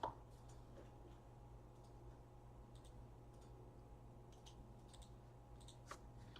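Near silence with a few faint, scattered keyboard clicks, light typing.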